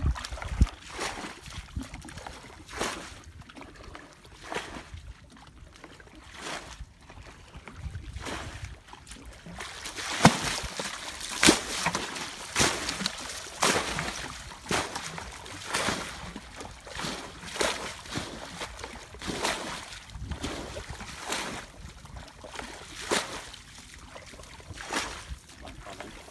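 Footsteps squelching and splashing through wet mud and shallow water, about one step a second.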